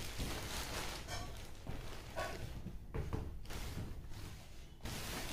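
Plastic courier bag rustling as a cardboard box is pulled out of it and handled, with a few dull knocks.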